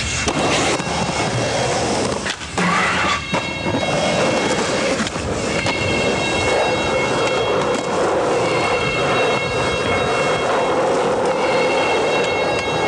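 Skateboard wheels rolling on pavement in a continuous roar, with a few sharp board clacks near the start and about two to three seconds in.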